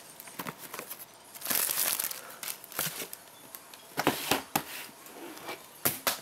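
Packaging being unwrapped by hand: irregular crinkling and tearing, with a few sharp crackles and knocks about four seconds in and again near the end.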